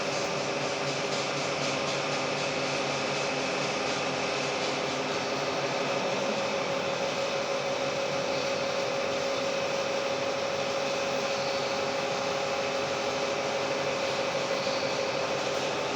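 Vertical milling machine running steadily during a side-facing cut, a constant machine hum with steady tones over it.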